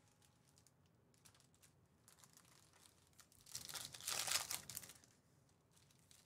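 A foil trading-card pack being torn open and crinkled in the hands, a crackly rustle starting about halfway through and lasting a second and a half.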